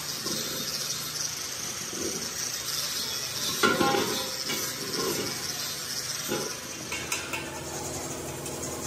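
Steel gas cylinders being handled and worked on by hand: irregular hollow metal knocks and clanks, the loudest a ringing clank about three and a half seconds in, over a steady hiss. Near the end come lighter metallic clinks over a low hum.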